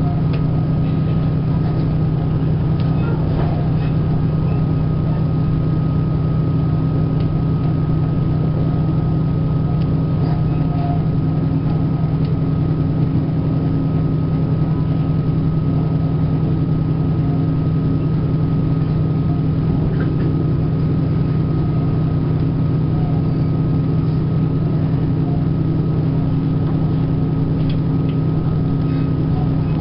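Steady drone of a vehicle's engine and running gear heard from inside it while it travels along, an even low hum with a thin steady whine above it that holds the same pitch throughout.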